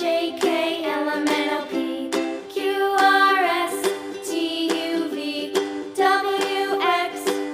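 Children's background music: a plucked-string accompaniment under a melody whose notes slide in pitch now and then, about three seconds in and again near the end.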